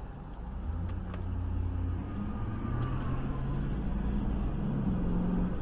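Car engine and road noise heard from inside the camera car's cabin: a low hum that rises slightly in pitch and grows gradually louder as the car drives on.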